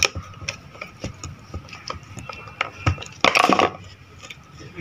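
Clicks, ticks and scrapes of a screwdriver and small metal parts as a juicer's motor is screwed back together, with a louder rustling scrape a little past three seconds in.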